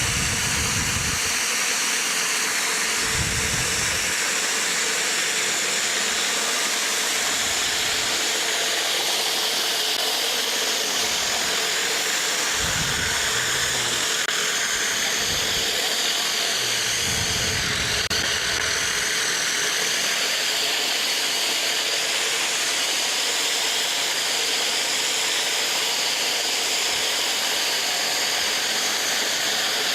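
Pressure-washer surface cleaner blasting a concrete driveway: a steady loud hiss of high-pressure water jets on the concrete, with a low rumble coming and going a few times in the first half.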